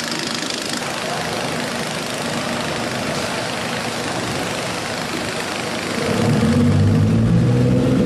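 Diesel engine of a wooden fishing trawler running, over a steady wash of noise. About six seconds in, the engine's low note grows louder and clearer.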